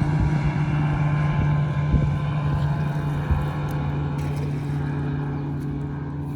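Motorboat engine running at a steady pitch, easing slightly in level toward the end.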